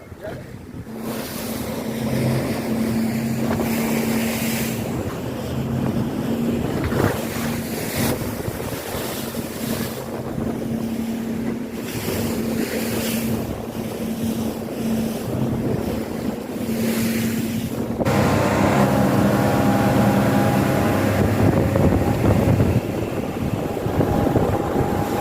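A boat's engine hums steadily over rushing water and wind buffeting the microphone. About three-quarters of the way through, the sound cuts abruptly to a louder passage with a different, higher engine hum.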